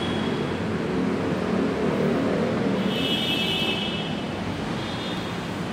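Steady background rumble of road traffic, with a brief high-pitched squeal about three seconds in.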